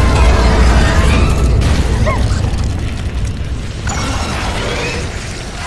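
An explosion: a loud boom at the start, then a deep rumble that slowly dies away over several seconds.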